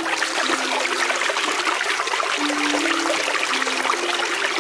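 Spring water running and trickling in a small mountain brook, a steady rush. Under it, a quiet pattern of low held notes repeats about every two seconds.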